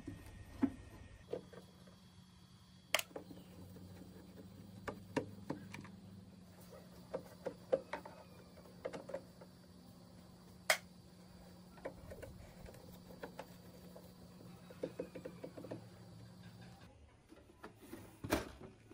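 Screwdriver working screws out of a CRT television's plastic back cover: scattered small clicks and scrapes of metal on plastic, with two sharper clicks about 3 and 11 seconds in. Near the end a louder rattle of plastic as the back shell is lifted.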